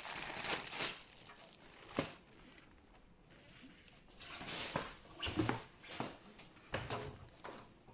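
Small clear plastic bag of crimp terminals crinkling as it is handled, with a sharp click about two seconds in. In the second half, rustling and light knocks of hands moving over the cardboard box and foam packing.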